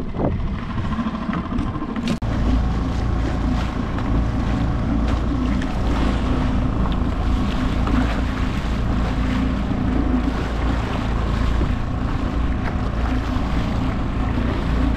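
Small Mercury outboard motor running steadily, pushing a kayak at speed through chop, from about two seconds in. Wind buffets the microphone, and water splashes off the hull.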